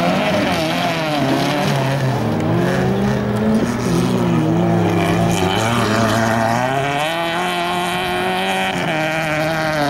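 Volkswagen Golf Mk2 race car's engine revving hard on a gravel slalom course. The engine note climbs and falls again several times as the driver shifts and lifts through the turns.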